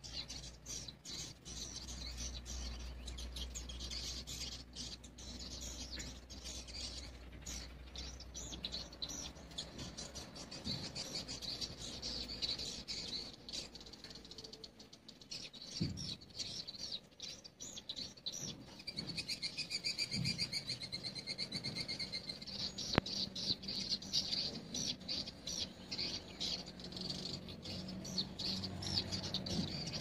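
Edible-nest swiftlets' calls: a dense, continuous stream of rapid high chirps and twitters, with a fast buzzy trill about twenty seconds in.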